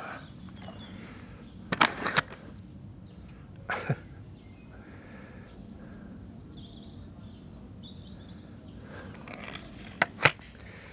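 Remington Express .22 break-barrel air rifle handled between shots: a few sharp clicks and clunks of its action. Two come close together about two seconds in, one near four seconds, and two more close together near the end.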